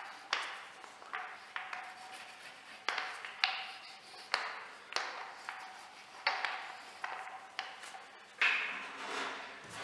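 An irregular series of sharp taps and knocks, each ringing briefly, coming about once a second.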